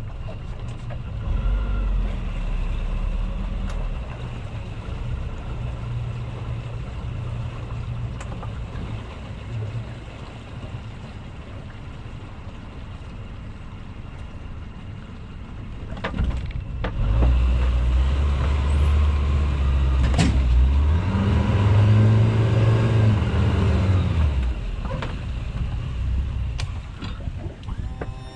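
Suzuki DF140 four-stroke outboard running at low speed, pushing the boat slowly. Past the middle it is throttled up briefly and louder, its pitch rising and falling, then it eases back.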